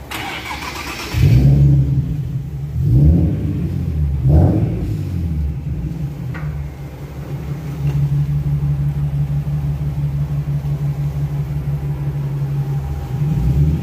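Nissan 370Z's 3.7-litre V6 starts about a second in, is revved twice, then settles to a steady idle.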